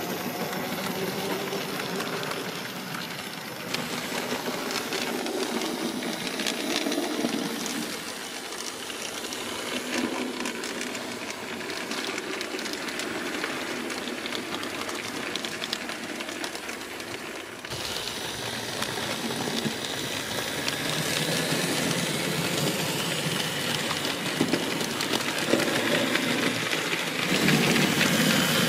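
HO-scale model goods trains running along the track: a steady rolling noise with light clicks of the wheels. The sound changes abruptly and grows louder about two-thirds of the way through.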